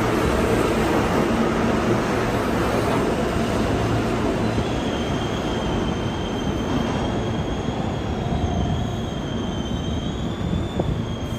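New York City subway train pulling out of the station, its wheels and motors rumbling steadily and slowly fading as it moves away. From about four and a half seconds in, a thin, high wheel squeal sounds over the rumble.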